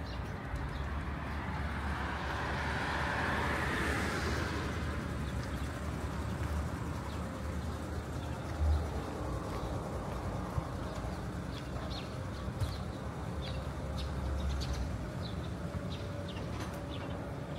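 Wet city street ambience: a vehicle passes with a hiss of tyres on the wet road, swelling and fading about two to four seconds in, over a steady low traffic rumble. From about two-thirds of the way through, a scatter of short high chirps.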